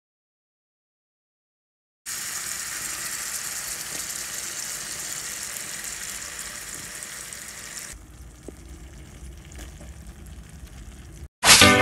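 Pork and onion sizzling in a hot pan as coconut milk is poured over them, a steady hiss that starts suddenly after about two seconds of dead silence. It drops to a quieter simmer with a few soft clicks at about eight seconds, and music comes in near the end.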